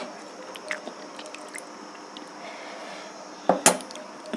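Dal poured from a small bowl onto rice on a steel plate and mixed in with the fingers: faint wet dripping and squishing, with two sharp clacks about three and a half seconds in.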